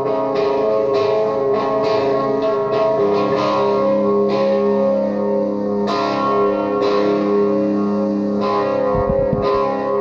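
Electric guitar through an Orange amp playing a looped psychedelic noise piece: layered, sustained drone notes under repeated picked notes. The picked attacks thin out about halfway through while the loop keeps playing back.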